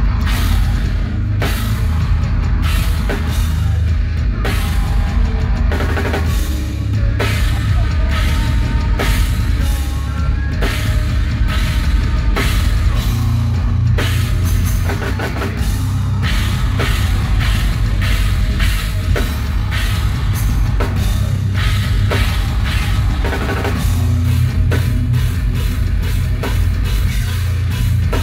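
Heavy metal band playing live: distorted electric guitar over a drum kit with busy bass-drum hits and cymbals, loud and boomy as picked up from the crowd.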